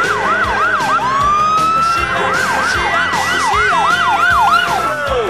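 Police car siren cycling between a fast yelp of about three sweeps a second and a long rising wail, then winding down just before the end.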